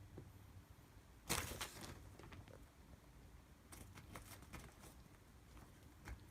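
Kittens scrambling in and against a cat play tunnel, its material rustling: one loud rustle about a second in, then a few shorter, fainter rustles and taps.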